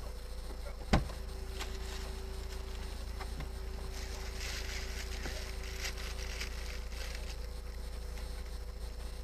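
Steady low hum of a car on the move, heard from inside, with one sharp click about a second in and a few fainter ticks later.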